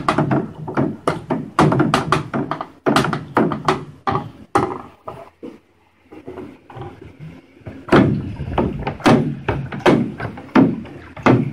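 Mead must of honey and water being stirred hard in a five-gallon fermenter, the stirrer knocking against the vessel's wall in quick, irregular thunks, with a short lull about five seconds in.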